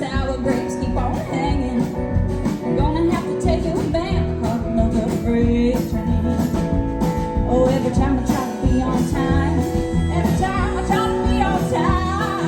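Live country band playing with a steady beat, a melodic lead line running over it.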